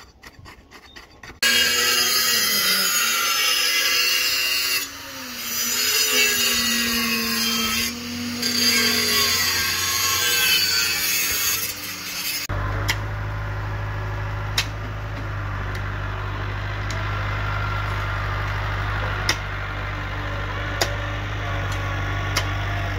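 Construction-site work noise. For about ten seconds there is a loud, harsh rasping, grinding noise whose pitch dips and rises. It cuts off, and a steady low engine hum follows, with shovels striking soil every second or two.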